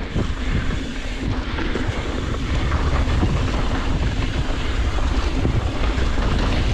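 Wind buffeting the microphone over tyre noise and rattle from an Ibis Ripmo full-suspension mountain bike rolling down a rough dirt trail, with scattered small knocks from the bumps.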